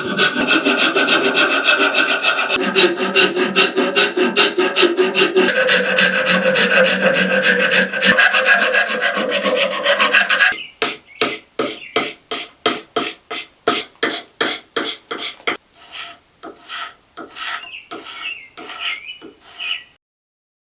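A hand file rasping on wood while a wooden arrowhead is shaped: quick back-and-forth strokes for about ten seconds, then slower separate strokes about two a second that stop suddenly near the end.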